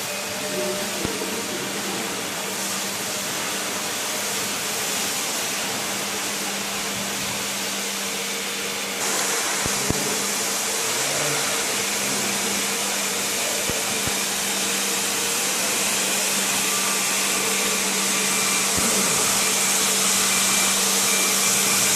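COMAC Innova 85B ride-on floor scrubber-dryer running, a steady whirring hiss of its suction motor and brushes over a low hum. The hiss jumps louder about nine seconds in and then builds slowly.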